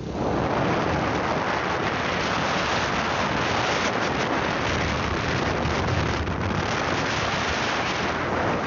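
Steady rush of wind and road noise from riding a moving motorcycle, the wind buffeting the microphone. An even, unbroken noise with no distinct events.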